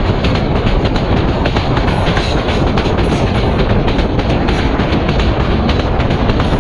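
PT INKA-built passenger train running at speed, heard right beside the coach: a loud, steady rumble and rush of air, with the clickety-clack of the wheels over the rails.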